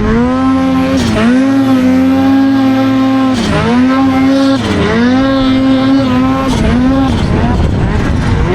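Snowmobile engine running hard at high revs, its pitch dipping and climbing back about four times as the throttle is eased off and reapplied.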